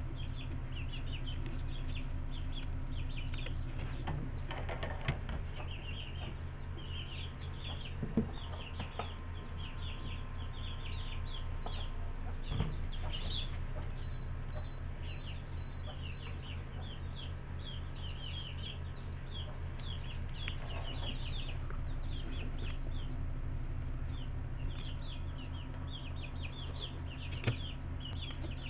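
Chickens peeping without pause in many quick, falling chirps, over a steady low hum. A few brief knocks stand out.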